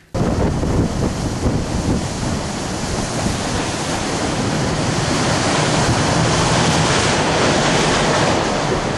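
Ski boat running on open water: wind blasting the microphone and water rushing along the hull, with the carbureted engine running low underneath.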